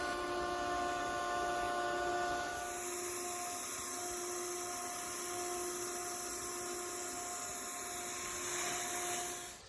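Steady machine hum with a few held whining tones over a high hiss, cutting off suddenly near the end.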